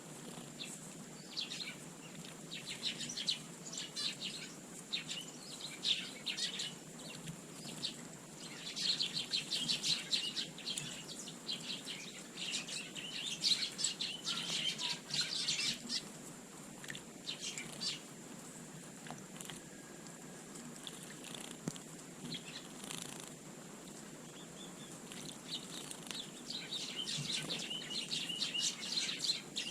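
Small garden birds chirping in quick, dense bursts, busiest in the middle and again near the end.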